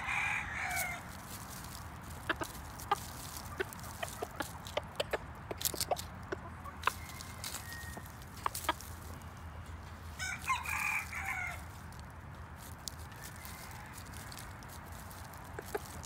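A rooster crowing twice, once at the start and again about ten seconds later, each call about a second long. Scattered sharp clicks and light rustles run throughout, fitting a gamecock pecking and scratching in dry leaves.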